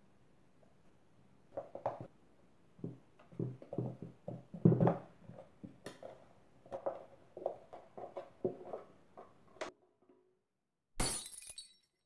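Irregular knocks, thumps and scrapes of a hand working bread dough out of a metal bread-machine pan, loudest about five seconds in. Near the end comes a short burst of breaking glass: a light-bulb-breaking sound effect.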